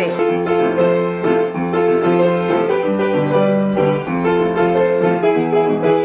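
Solo piano playing a tune, with the melody over changing bass notes.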